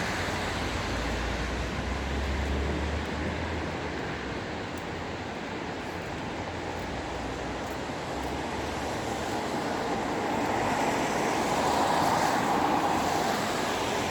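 Steady street traffic noise, with a low engine hum in the first few seconds and a vehicle passing that swells about ten seconds in and fades near the end.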